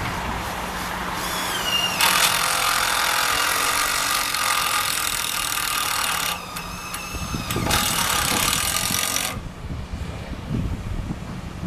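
Demolition work: a harsh grinding and screeching in two long stretches with a short break between them, stopping suddenly about nine seconds in. Wind rumbles on the microphone follow.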